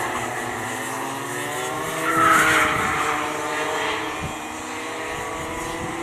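Several small two-stroke kart engines (IAME Gazelle cadet karts) racing together, their pitches rising and falling as they brake and accelerate through the corners. They are loudest about two seconds in.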